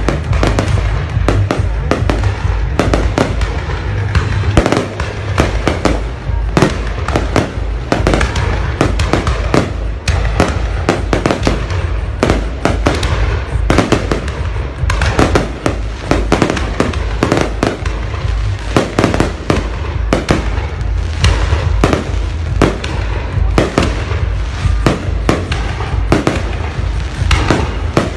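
A dense, unbroken barrage of fireworks going off, several bangs a second with crackling, over a constant heavy low rumble.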